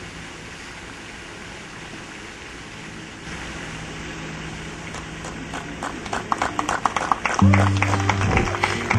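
Steady background hiss, then guests' applause building from about five seconds in as the couple kiss, and recorded music starting up near the end.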